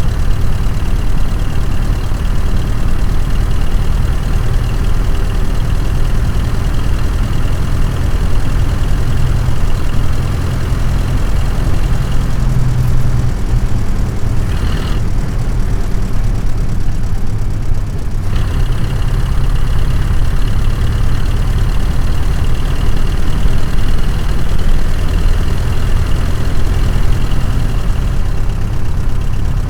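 1927 Chevrolet roadster's four-cylinder 2.8-litre engine running steadily with a strong low rumble; about halfway through, the upper part of the sound falls away for several seconds before returning.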